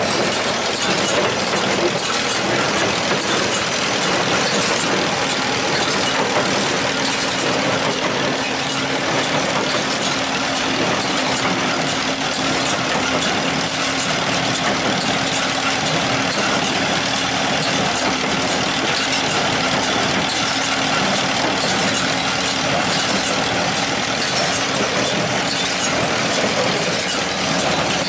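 John Deere 216 wire-tie hay baler at work, driven by its four-cylinder Wisconsin engine: a loud, steady engine-and-machinery noise.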